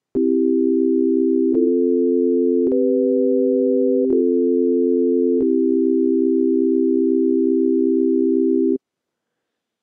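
Organ-like sustained chord from Ableton Live's Operator synthesizer, its envelope set for full sustain: a low note holds steady while the notes above it change four times, each change marked by a faint click, and everything cuts off abruptly near the end.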